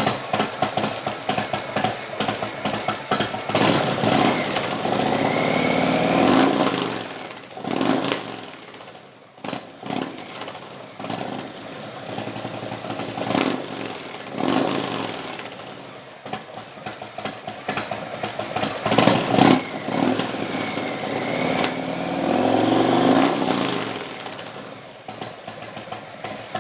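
Indian Thunder Stroke 111 V-twin with Stage 3 cams idling choppily through slip-on mufflers, and revved several times: two longer revs that rise and fall back, with a few quick throttle blips between them.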